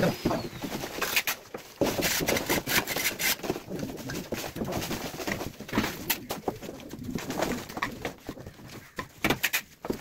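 Hand plastering of a concrete ceiling: a run of short scrapes and knocks from trowels and a wooden float working cement mortar. A bird is cooing in the background.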